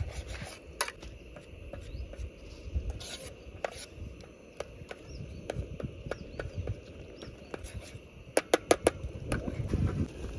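Spatula stirring and scraping a tomato-and-spice masala in a cooking pan, with scattered clicks of metal on the pan and a quick run of about five taps near the end.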